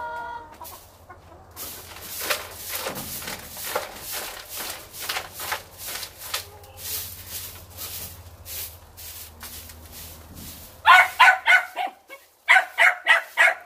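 Broom sweeping dirt and straw litter in short quick brushing strokes, about two or three a second. About eleven seconds in, hens break into loud rapid clucking in quick runs of calls, louder than the sweeping.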